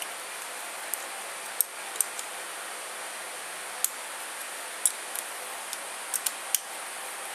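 Scattered light metallic clicks and taps of a hand wrench working the cam chain tensioner bolts on a KTM four-stroke engine, at irregular intervals over a steady hiss.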